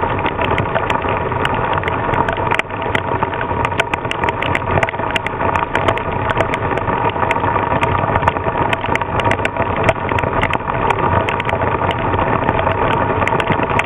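Squall of heavy rain and strong gusting wind: wind rumbling steadily on the microphone, with many sharp ticks of raindrops striking.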